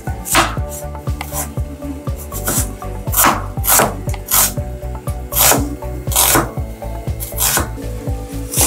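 Kitchen knife slicing through a red onion onto a wooden cutting board: a dozen or so crisp cuts at an uneven pace, roughly one every half second to second.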